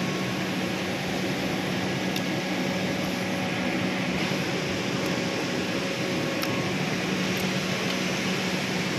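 Steady drone of industrial plant machinery, a constant noise with a low hum under it. A couple of faint clicks come through it.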